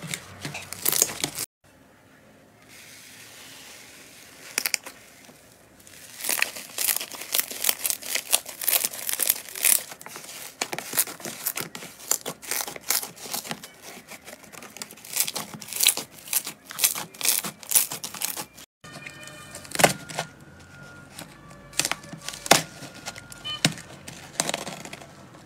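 Slime being squished, stretched and pressed by hands, giving dense runs of sticky crackling and popping clicks, with a quieter few seconds near the start.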